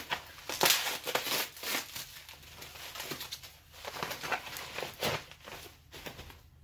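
Packaging being handled: a run of irregular crinkling and rustling strokes, loudest in the first couple of seconds, as a server power supply is unwrapped.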